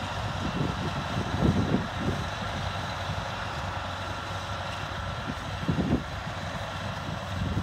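John Deere 8850 tractor's V8 diesel engine running steadily under load while pulling a ten-furrow mouldboard plough through the ground, with a faint steady high whine over it.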